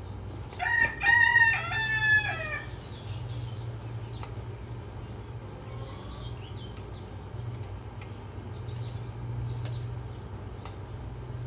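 A rooster crowing once, about two seconds long, starting just under a second in, over a steady low hum.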